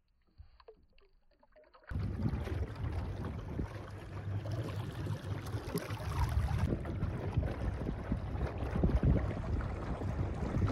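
Muffled, near-silent underwater sound, then about two seconds in a sudden switch to gusty wind on the microphone and choppy water around a small boat on a lake.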